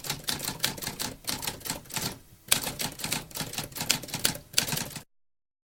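Typewriter keys clacking in an irregular run of strikes, with a short break just after two seconds. The strikes stop abruptly about five seconds in.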